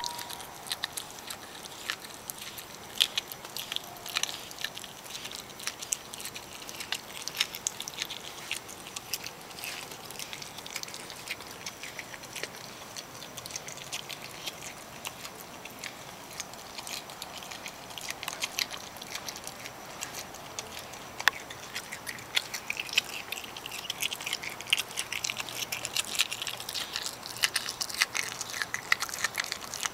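Opossum chewing food with its mouth open: irregular wet smacks and clicks, getting busier in the last several seconds.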